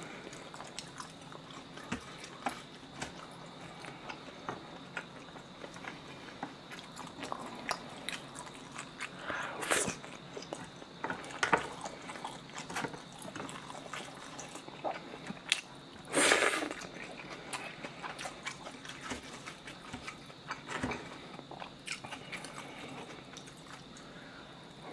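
Close-miked chewing and mouth sounds of eating pressed pork slices and spicy cold noodles, with many small clicks and two louder, half-second sounds about ten and sixteen seconds in.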